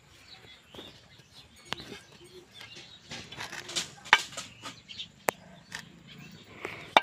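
Knife cutting chunks of papaya over a metal pot: scattered soft clicks and knocks at irregular intervals as the blade cuts and pieces drop in, with birds chirping in the background.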